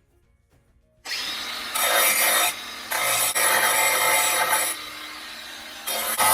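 A power tool worked against the piece in three long, loud bursts, starting about a second in, to clean up a cut edge.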